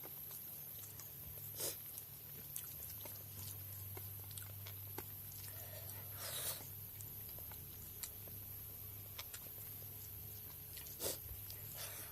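Close-up eating sounds: chewing and small mouth clicks, with three short louder bursts, about a second and a half in, midway and near the end, over a steady low hum.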